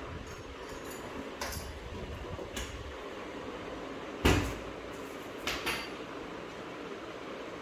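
Metal knocks and clinks on the steel cabinet of an LG front-loading washing machine as its transit bolts, which hold the drum fixed for transport, are taken out from the back. A couple of light clicks, then one loud knock about four seconds in and two smaller knocks shortly after.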